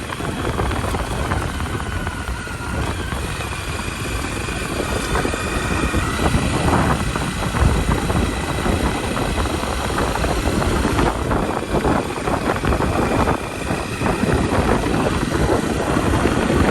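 Motorcycle running at riding speed on a loose gravel road, its engine note under the steady crunch and clatter of tyres over stones.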